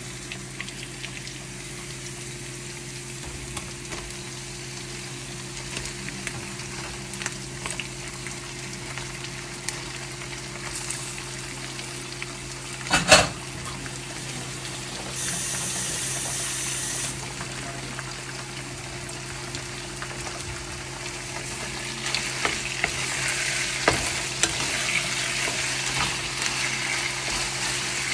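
Food frying and sizzling in a pan while being stirred, with small knocks of a utensil, over a steady low hum. There is one loud clatter about halfway through, and the sizzling grows louder near the end.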